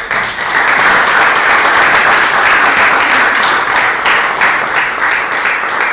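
Audience applauding at the end of a poem. The applause starts abruptly and thins into scattered separate claps near the end.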